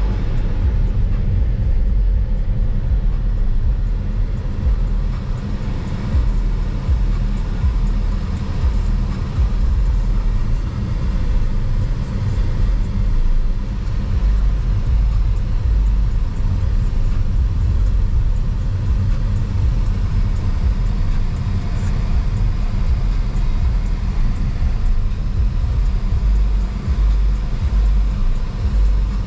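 Steady low rumble of a car in motion, road and engine noise.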